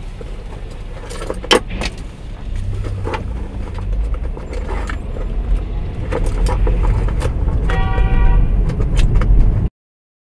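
Car interior heard through a dashcam while crawling in slow traffic: low engine and road rumble that grows louder about halfway through, with sharp rattles and clicks from inside the cabin. A short steady pitched tone sounds about eight seconds in, and the sound cuts off abruptly near the end.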